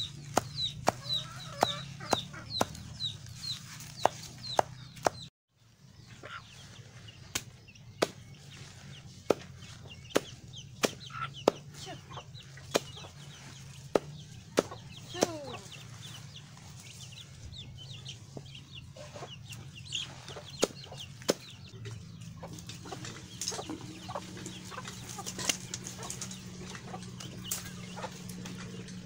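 A large knife chopping taro stalks and leaves against a woven bamboo basket. The sharp chops come steadily about twice a second at first, stop briefly about five seconds in, then carry on more irregularly. Chickens cluck nearby, over a steady low hum.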